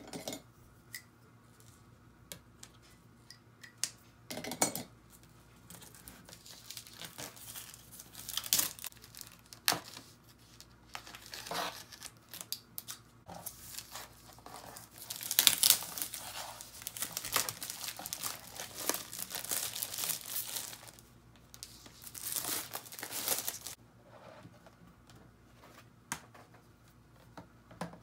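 Clear plastic protective film being torn and peeled off a picture frame by hand, crinkling in irregular bursts that are loudest about halfway through, with a few sharp clicks between.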